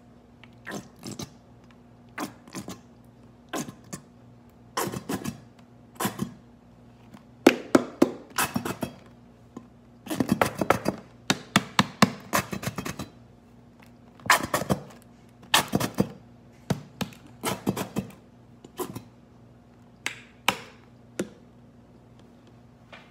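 Plastic ketchup squeeze bottle being squeezed again and again, giving a long irregular run of short sharp squirts and clicks that come thickest in the middle.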